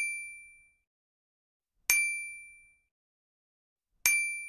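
A bright bell-like chime dinging three times, evenly about two seconds apart, each strike identical and ringing out for under a second.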